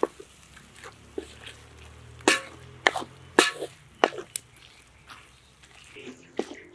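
Wooden spatula scraping and knocking against a large metal pan as eggs and fried vegetables are stirred: a series of sharp scrapes at irregular intervals.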